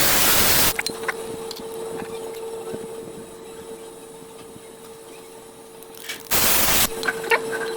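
Two short bursts of loud spraying hiss, one at the start and one about six seconds later, over a steady machine hum with a few light clicks.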